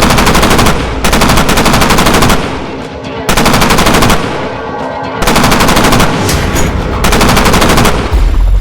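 Automatic gunfire in five rapid-fire bursts, each about a second long with short gaps between them.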